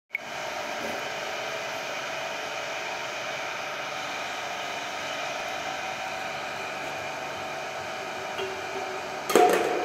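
Handheld electric grout-injection pump running with a steady whirring motor hum, pressure-injecting leak sealant through its hose into the tank wall. A loud knock cuts in near the end.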